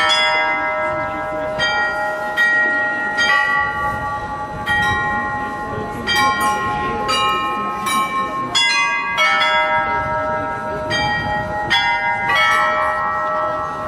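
The Olomouc astronomical clock's carillon of small bells playing a tune, one struck note after another, each note ringing on under the next.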